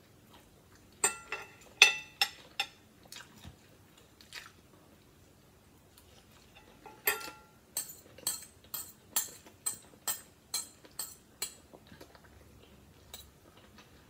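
Metal spoon and fork clinking and scraping on a glass plate while eating, with chewing. There is a cluster of clicks about a second in and a denser run of them from about seven seconds in.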